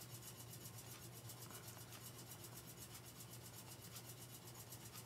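Near silence: a steady low hum and faint hiss, with faint rubbing of a stylus writing letters on a tablet.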